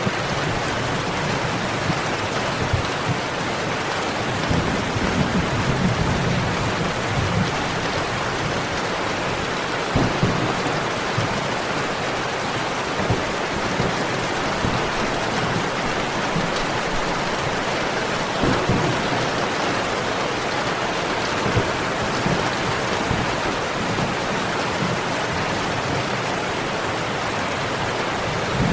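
Steady heavy rain falling, with low rumbles of thunder swelling now and then.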